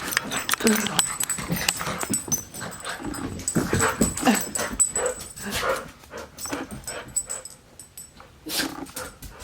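Two pet dogs play-fighting: scuffling with many quick clicks and knocks and short dog vocal noises, quieter in the last few seconds.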